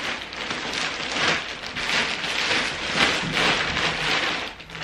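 Thin clear plastic bag crinkling and rustling continuously, in uneven swells, as it is pulled off a large plush pillow.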